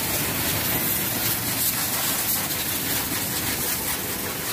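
Pressure-washer jet spraying water onto a motorcycle: a steady, even hiss of high-pressure spray hitting the bike and the wet concrete floor.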